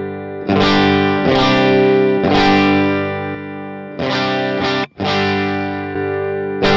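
Electric guitar chords strummed and left ringing through a Line 6 POD Go amp model. The phrase is played with the Retro Reel tape-emulation effect on and then off, restarting after a short break about four seconds in.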